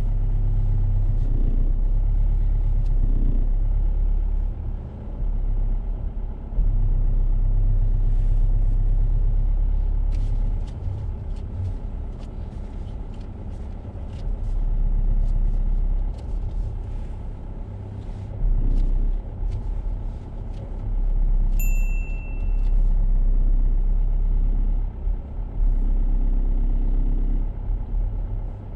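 Car engine running at low speed during a reverse parallel-parking manoeuvre: a low rumble that rises and falls in level several times. Scattered light clicks come through the middle, and a short high beep sounds about 22 seconds in.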